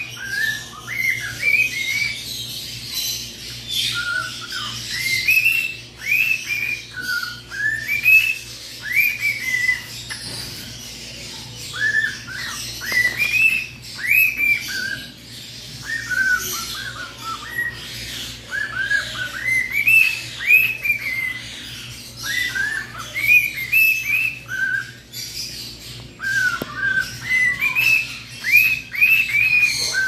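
Male cockatiel whistling a learned tune: runs of short, clear notes, each rising and falling in pitch, in phrases separated by brief pauses.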